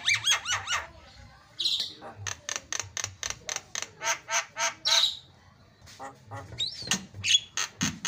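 Javan myna calling in fast runs of short, harsh chattering notes, about four a second, broken by a couple of brief pauses. A few squeaky notes and a rising whistle come near the end.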